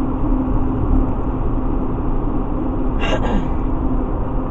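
Steady road and tire noise inside a truck cabin at highway speed, with a steady hum from the big knobby tires. About three seconds in there is a brief sharp rattle-like noise, the kind of loose item shaking in the back that the driver keeps hearing.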